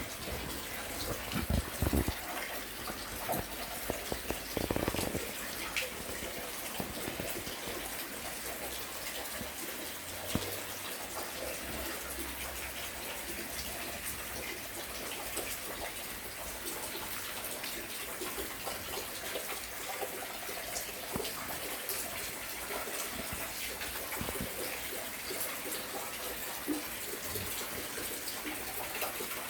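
Steady rain falling, an even hiss of water, with a few louder bumps in the first five seconds.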